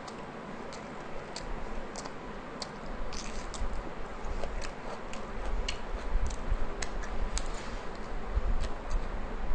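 Close-up eating sounds of a person eating rumali roti and mutton tikia by hand: irregular sharp wet clicks and smacks, a few a second, over a low rumble.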